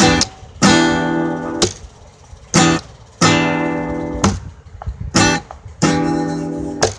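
Acoustic guitar strummed in a slow rhythm: full chords are struck and left to ring for about a second before being damped, with short, quick strokes between them.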